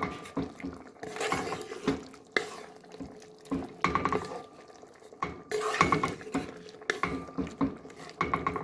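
Wooden spoon stirring a thick stew in a metal cooking pot, scraping and knocking against the pot in irregular strokes, some knocks followed by a brief ringing note from the pot.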